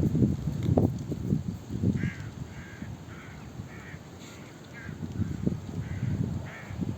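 A bird calling in a quick series of short, harsh notes, about two a second, starting about two seconds in. Under it, low gusty rumbles of wind buffeting the microphone, strongest at the start and again near the end.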